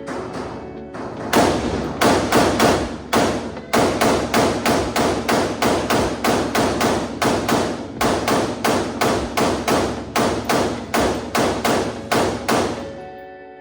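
Gunshots fired one after another in rapid, steady succession, about three a second, stopping near the end; faint music underneath.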